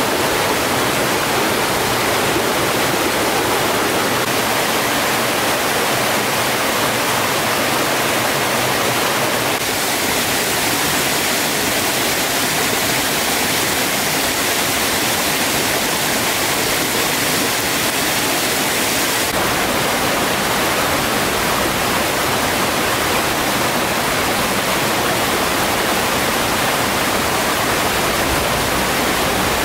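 Steady rush of a small stream running over rocks. Its tone turns brighter for about ten seconds in the middle.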